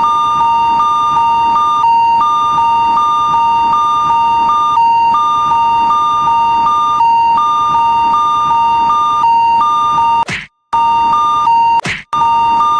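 Japanese railroad crossing warning bell, an electronic two-tone ringing that pulses about twice a second. It cuts out briefly about ten seconds in and again about twelve seconds in.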